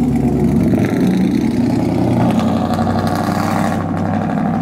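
Lifted pickup truck's engine running as it drives off, a loud steady engine note.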